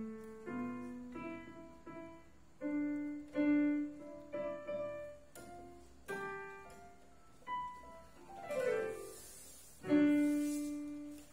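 Electronic keyboard in a piano voice, keys pressed by an adult and a baby monkey: single notes and small chords struck unevenly, one after another, each ringing and fading. Near the end comes a quick downward run of notes, then a loud chord that rings out.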